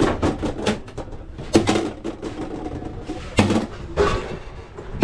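Sharp clanks and knocks of stainless-steel tongs and lids against the steam-table wells of a hot dog cart, four louder strikes spread through a few seconds of handling.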